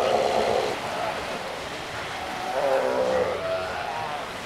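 Northern fur seals calling in a breeding colony: a drawn-out pitched call at the start lasting under a second, and another wavering call about three seconds in, over the steady hubbub of the rookery.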